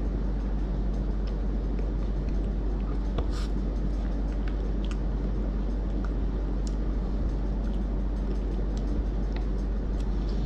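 Steady low hum and hiss of room background noise, with faint scattered mouth clicks from chewing ice cream.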